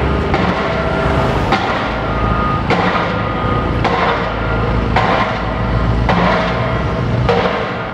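Pile driver on a construction site striking at a steady pace, about one blow a second, over the steady low rumble of heavy machinery engines.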